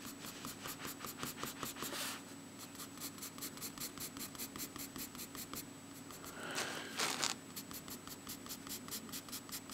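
Charcoal pencil scratching across sketchbook paper in quick, even shading strokes, about seven a second. Two louder, longer scrapes on the paper come about two seconds and seven seconds in.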